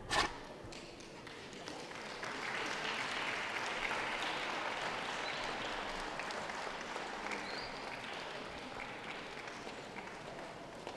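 Audience applauding: the clapping swells in about two seconds in and slowly dies away. A single sharp knock comes just at the start.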